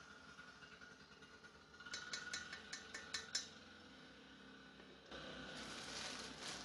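A red plastic measuring spoon tapped rapidly against a stainless steel saucepan, about eight quick clicks in a second and a half, knocking out ground cinnamon. About five seconds in, a soft steady rustling begins.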